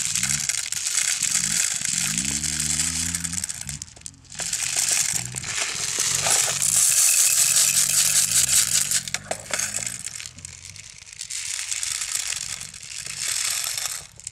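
0.20 g plastic airsoft BBs pouring from a bottle into the magazine of a Snow Wolf Barrett replica, a dense rattling patter with a brief pause about four seconds in.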